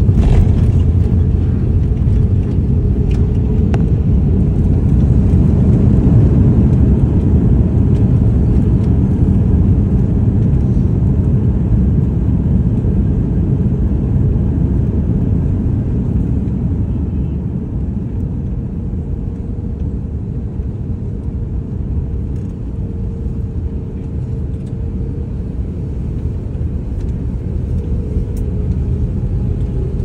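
Loud, steady low rumble of wind buffeting the microphone, mixed with the jet engines of an arriving Airbus A330-300 airliner. A faint steady engine tone sits over the rumble, which swells a little early on, eases off past the middle and builds again near the end.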